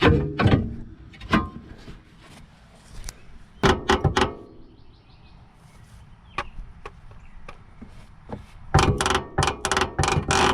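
Hammer blows on steel suspension parts: a few separate strikes, then a quick run of blows near the end, knocking the lower control arm free.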